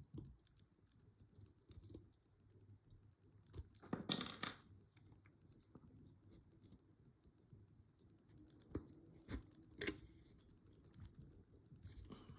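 Faint, fine metallic clicking and scraping of lock-picking tools working in a rusty laminated padlock that is picked but stuck. There is a louder rattle about four seconds in and a few sharper clicks near the end.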